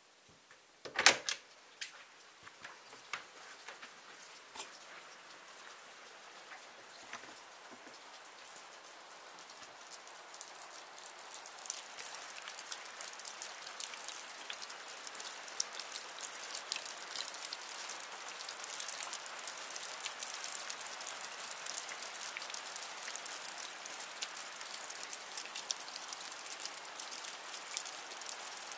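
A handle clunks sharply about a second in, with a few smaller clicks after it. Then rain comes in: a steady hiss full of fine drop ticks that grows louder over the first ten seconds or so and holds.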